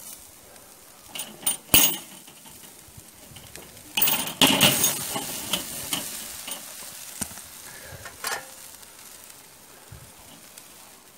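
Metal clinks and rattles of a hinged wire grilling grid being handled on a Weber kettle barbecue: a few sharp clinks, then a louder clatter about four seconds in and one more clink near the end. A faint steady sizzle of chicken kebabs over the hot coals runs underneath.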